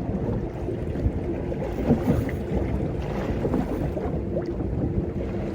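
Steady wind buffeting the microphone over the wash of water around a small fishing boat.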